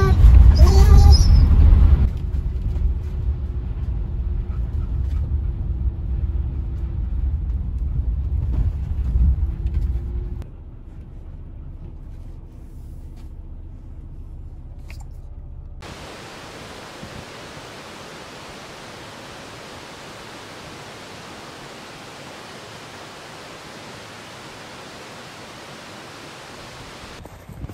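Low road rumble inside a pickup truck's cab as it drives a snowy gravel road, loudest in the first two seconds and dropping to a much quieter level about ten seconds in. From about sixteen seconds on, a steady even hiss with no rumble.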